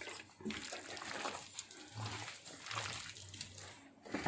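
Wet squelching of hands kneading raw chicken pieces in a thick chicken 65 masala marinade, with gram flour being worked in for binding.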